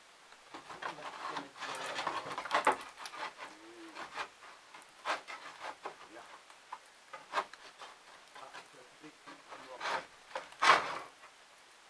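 Irregular knocks, scrapes and rubbing of someone moving about and handling things in an attic. A stretch of continuous rubbing comes a couple of seconds in, and a single louder knock comes near the end.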